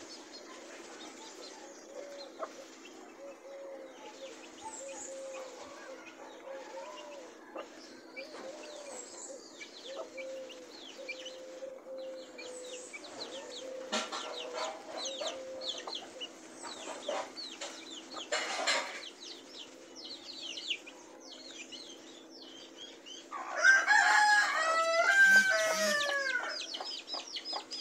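Domestic chicks peeping in quick, high, falling chirps throughout, with a hen clucking softly and low in the first half. Near the end a rooster crows once, for about three seconds, the loudest sound.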